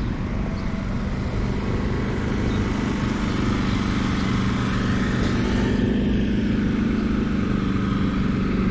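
An engine running steadily at idle close by, a fast, even low pulsing with a steady hum.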